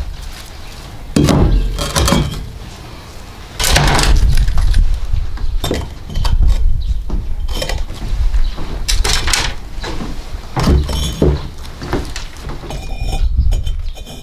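Hard pieces, ceramic or stone, knocking, scraping and clinking against each other about eight times, with wind buffeting the microphone underneath.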